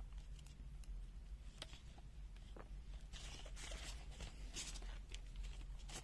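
Faint handling noise: scattered light clicks and a few soft rustles, over a steady low mains hum.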